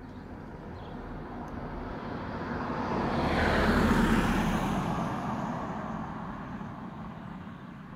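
A car passes close by. The tyre and engine noise swells to a peak about four seconds in, drops in pitch as it goes past, and fades away.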